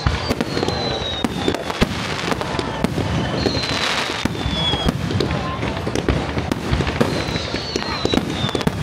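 Fireworks display going off: a rapid, continuous string of bangs and crackling, with three high whistles that fall in pitch.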